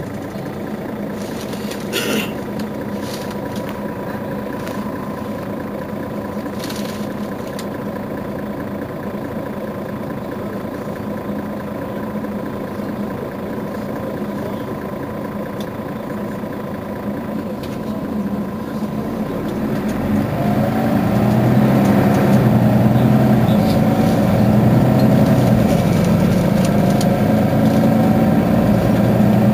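Mercedes-Benz Citaro city bus engine idling at a stop, with a few short clicks. About twenty seconds in the engine grows louder and its pitch rises and wavers.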